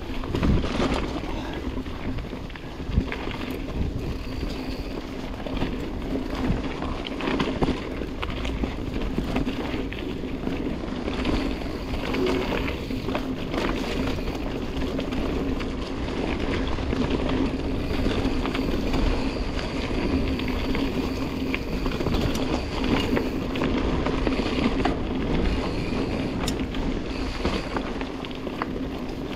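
Dartmoor Primal mountain bike being ridden along a singletrack trail: steady tyre rolling noise with a low hum, and many small rattles and knocks from the bike over rough ground.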